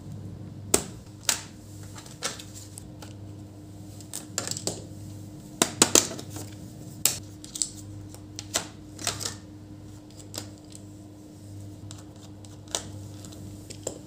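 Scattered plastic clicks and clacks of an Acer Aspire V3 laptop being handled: the lid shut, the machine turned over and its bottom cover parts set down, with the loudest cluster about six seconds in. A steady low hum runs underneath.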